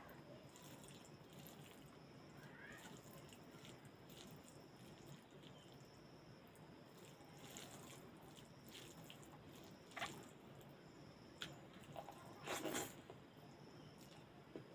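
Faint, soft squishing and smacking of eating by hand: rice and cooked leafy greens worked with the fingers on a plate and chewed. A few louder wet smacks come about ten seconds in and again about twelve to thirteen seconds in.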